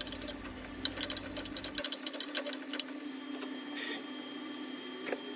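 Sliced onions sizzling and crackling in hot oil in a pan, stirred with a metal spoon at the start. The crackle is thickest in the first few seconds, over a faint steady hum.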